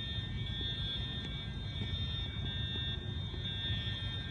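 Fire alarm horns, which are believed to be Edwards Genesis units, sounding a steady high tone over a low rumble.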